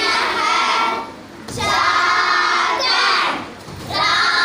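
A group of young girls singing together, in phrases of a second or so with short breaks between them.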